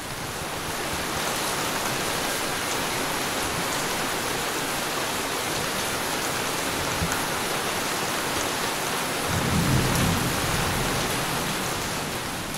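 Steady rain with a low rumble of thunder about ten seconds in, fading in at the start and fading out near the end.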